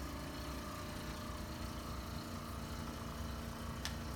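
A steady low mechanical hum, with a second steady hum note coming in about halfway through and a faint click near the end.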